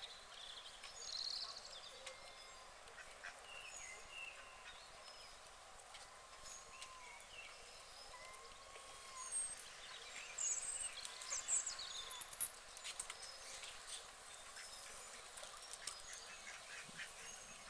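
White ducks quacking on a pond: short, fairly faint calls scattered throughout, busiest and loudest from about nine to thirteen seconds in.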